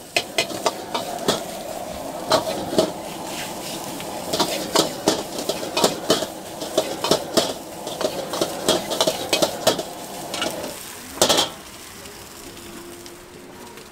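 Fried rice sizzling in a wok while a metal ladle scrapes and knocks against the wok, several irregular strokes a second. The stirring stops a little after ten seconds with one louder knock, and it is quieter after that.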